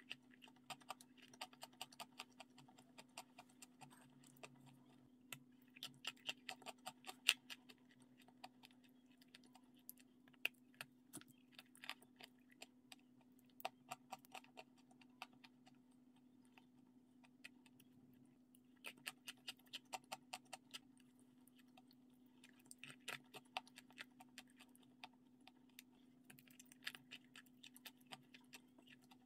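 Close-up eating sounds: a person chewing a sandwich with a crispy filling, making clusters of quick crackling, clicking mouth sounds that come and go every few seconds. A faint steady hum runs underneath.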